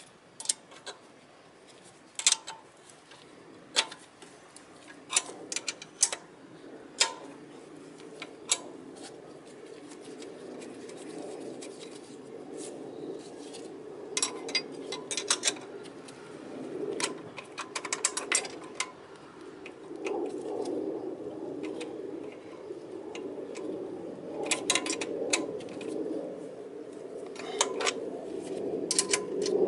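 Irregular metallic clicks and clinks of hand tools at work on a scooter's rear brake, some in quick clusters, over a low rustling and scraping that grows louder in the second half.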